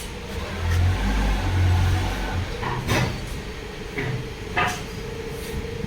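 Workshop noise: a low rumble for about two seconds, then a few sharp knocks of tools on metal, over a steady hum that starts about halfway through.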